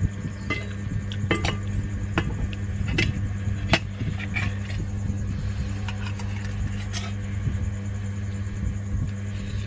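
Spoon clinking and scraping against a bowl during eating, a dozen or so sharp clinks scattered irregularly, over a steady low hum from an electric fan that is running.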